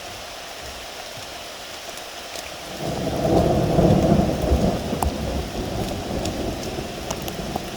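Steady rain with scattered drops ticking close by. About three seconds in, a low rumble of thunder swells up, peaks for a second or two and slowly dies away.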